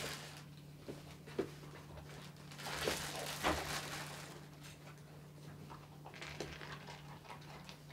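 Weimaraner puppy eating kibble from a hand and off a floor mat: scattered small crunches and licks, with a rustle of the plastic food bag about three seconds in. A steady low hum runs underneath.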